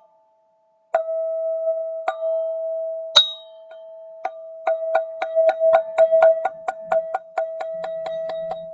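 Golden ZenTube struck repeatedly, ringing one sustained tone with bright overtones. After a brief gap come a few single strikes about a second apart, with a brighter, sharper one about three seconds in. From about four seconds in it is struck in a fast, even roll of about four strikes a second.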